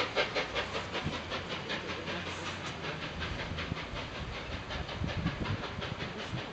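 Three-cylinder LNER Peppercorn A1 steam locomotive 60163 Tornado working hard, its exhaust beats coming quickly and evenly at about five or six a second and growing slightly fainter.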